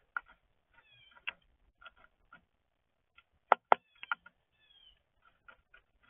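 Small backyard songbirds at a feeder: scattered short chips and a few brief down-slurred calls, with two sharp taps close together about three and a half seconds in, the loudest sounds.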